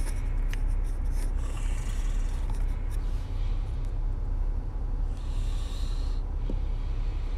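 Steady low rumble with a few short hissing rustles, picked up by a phone's microphone.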